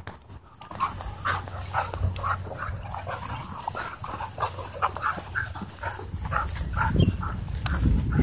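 Several dogs play-fighting, giving short yips and growls several times a second, with a deeper rumbling growl building near the end.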